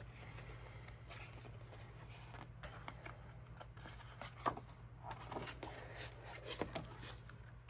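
Faint rustling and light ticks of paper being handled as the pages of a desk calendar are turned, over a steady low hum.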